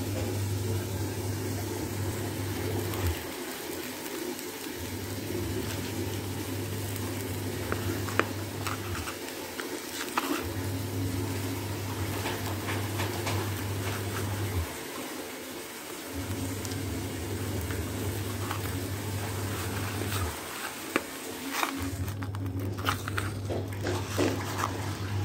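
A low machine hum cuts in for about four seconds and out for about a second and a half, five times over. Light rustles and taps from handling the fish and the dry rice grains are heard, most of them near the end.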